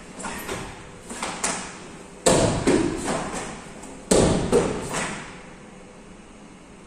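Karate gi snapping and bare feet slapping and stamping on a wooden floor during the kata Enpi: several sharp snaps in the first two seconds, then two loud thuds about two and four seconds in, each echoing in the hall.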